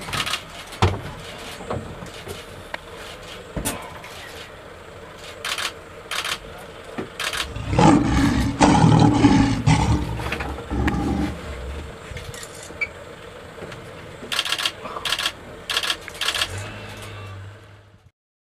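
Male lion roaring: one loud, deep roar about eight seconds in that lasts some three seconds, with short sharp sounds scattered before and after over a faint steady hum.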